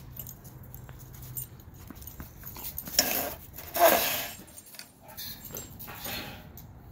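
A dog playing and vocalizing: two short, loud sounds in quick succession about three seconds in, the second falling in pitch, then a couple of fainter ones.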